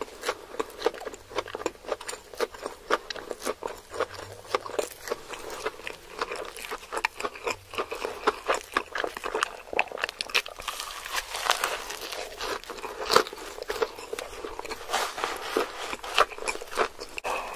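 Close-miked eating of a stacked cheeseburger: bites and chewing, with dense, irregular crisp crackles and wet mouth clicks, and one sharp loud snap about two thirds of the way through.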